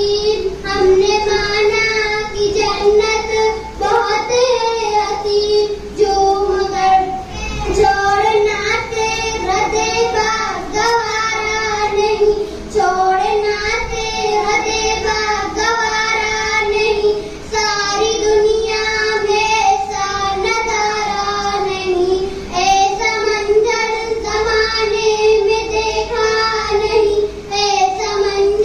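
A young girl singing into a microphone: a continuous melodic vocal line of long held notes, with short breaths between phrases.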